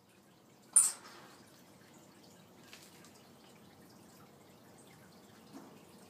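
Juvenile black arowana striking at the aquarium water surface: one sharp splash about a second in, followed later by two much fainter small splashes.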